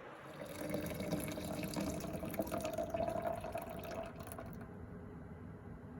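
Running water, stopping suddenly about four and a half seconds in.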